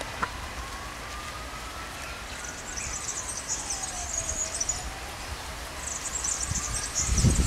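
Low rumble of a diesel railcar moving slowly through the points, with a distant siren wailing slowly up and down. Two bursts of high chirring come in the second half.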